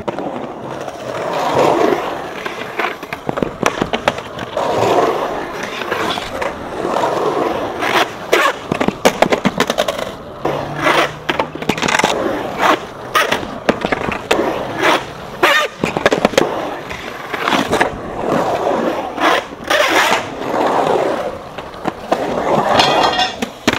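Skateboard wheels rolling through a concrete bowl, the roll swelling and fading with each pass up and down the walls, broken by many sharp clacks and scrapes of the trucks and board on the metal pipe coping.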